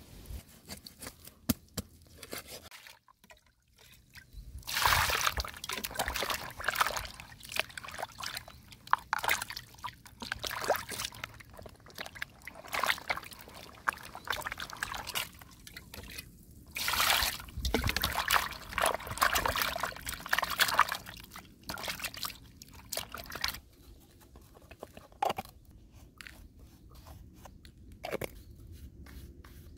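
Water sloshing and splashing in a plastic basin as a gutted snakehead fish is scrubbed by hand, in uneven bursts. It settles to a few soft knocks near the end.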